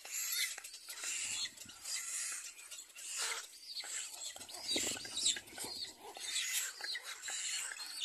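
Little black cormorant nestlings begging in the nest: a continuous run of high, squeaky, wavering calls from several chicks at once.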